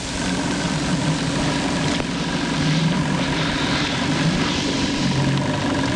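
An engine running steadily, a low droning hum that wavers slightly in pitch and starts abruptly.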